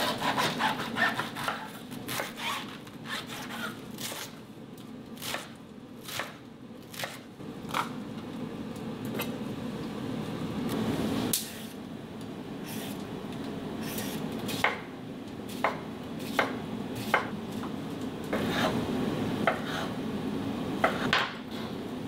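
Kitchen knife cutting vegetables, including broccoli, on a wooden cutting board: scattered, irregular sharp knocks of the blade against the board over a steady low background hum.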